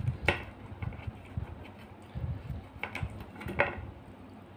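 Close-up eating sounds: chewing and wet mouth smacks while eating fried pomfret by hand, with a few sharp smacking clicks.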